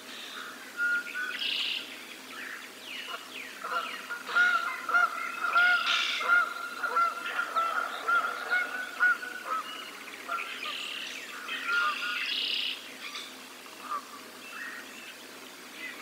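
Geese honking in a quick run of repeated calls through the middle, over a chorus of songbird chirps and trills before and after.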